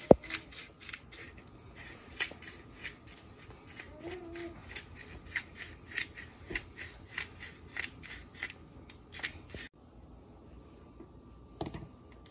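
Black-pepper grinder clicking as pepper is ground, about two or three sharp clicks a second. The clicking stops abruptly near the end, followed by a single knock.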